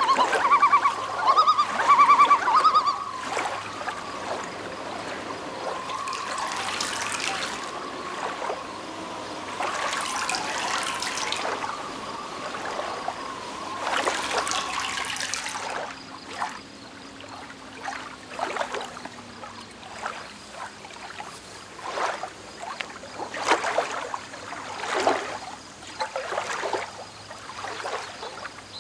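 Stream water trickling, with three longer splashes of water running from cupped hands back into the stream, about three seconds apart, then many small splashes and drips. A high, warbling pitched sound is the loudest thing in the first three seconds.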